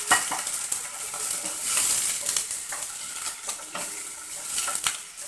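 A wooden spatula stirs mango pieces in water and spiced oil in a non-stick kadhai, with irregular scrapes and knocks against the pan. Under them runs a steady sizzling hiss of the freshly added water on the hot oil, easing off near the end.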